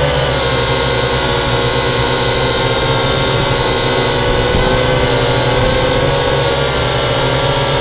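Small quadcopter drone hovering, its motors and propellers making a loud, steady whine that wavers slightly in pitch.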